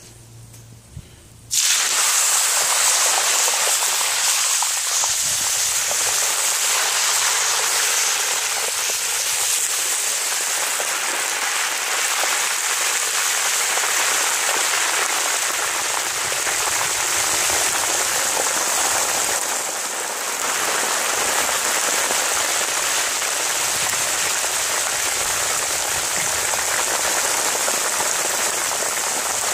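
Raw cut potatoes deep-frying in hot oil in a cast-iron Dutch oven: loud, steady sizzling that starts suddenly about a second and a half in.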